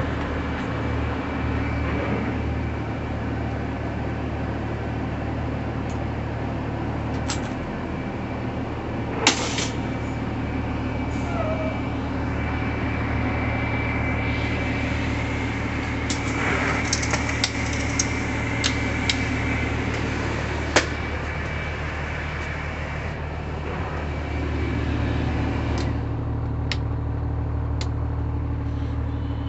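A school bus engine idling steadily, heard from inside the cab, with scattered clicks and knocks over it. Near the end come a few sharp clicks of the dash rocker switches being pressed.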